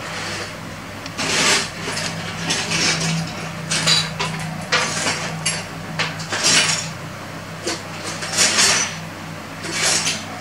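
Small plastic LEGO pieces being handled and fitted together: a string of short clicks and clatters at irregular intervals, several seconds apart at most.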